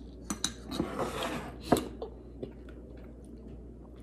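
Metal fork clicking and scraping against a plastic takeout bowl: a few light clicks with a short scrape, the sharpest click a little under two seconds in.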